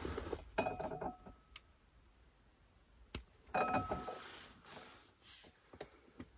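Quiet handling sounds in a small car cabin: a few sharp clicks, and two short rattles with a brief metallic ring, about a second in and again about four seconds in.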